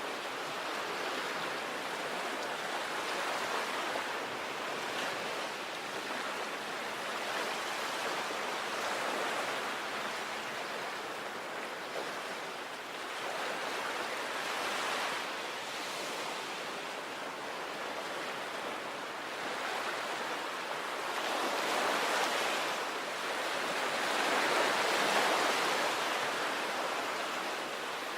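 Sea waves breaking and washing on the shore, a continuous rushing surf that swells louder several times, most strongly about three-quarters of the way through.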